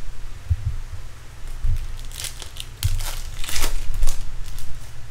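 Silver foil wrapper of a 2012 Bowman Chrome card pack torn open and crinkled in a series of crackling rips, starting about two seconds in. A few low handling bumps come before it.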